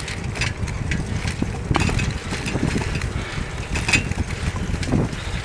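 Riding a bicycle along a paved lane: wind rumbling on the microphone, with scattered clicks and rattles from the bike.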